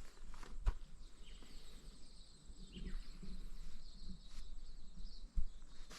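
Quiet outdoor ambience: a few faint bird chirps over a steady high background hiss, with two dull low knocks, one near the start and one near the end.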